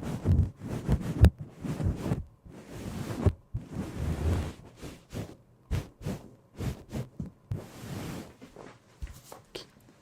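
Foley props being handled: irregular soft knocks and thuds mixed with longer rustling swishes.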